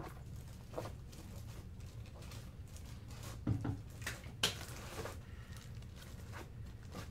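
Scattered small clicks and rustles over a low steady hum, with two louder clicks about three and a half and four and a half seconds in.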